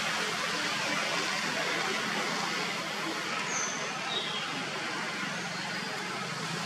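Steady outdoor background noise: an even hiss with a low hum under it, and two short high falling chirps about three and a half and four seconds in.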